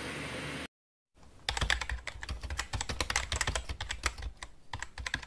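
Keyboard typing sound effect: a fast, uneven run of key clicks starting about a second in, thinning out near the end. It opens with a moment of steady room noise cut off abruptly.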